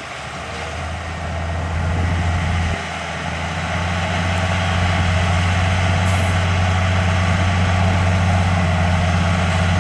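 Heavy diesel engine of earthmoving equipment running under load, a deep steady drone that swells over the first couple of seconds and then holds.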